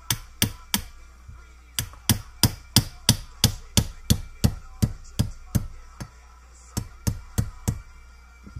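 Small hammer tapping a steel pin into the action of a Zabala double-barrel shotgun, in quick sharp strikes of about three a second. There is a run of four, a brief pause, a long run of about a dozen, then four more near the end.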